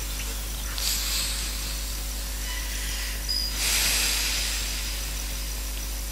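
A reciter's breaths into a close microphone: two short hisses, about a second in and a louder one near four seconds, over a steady low hum from the sound system.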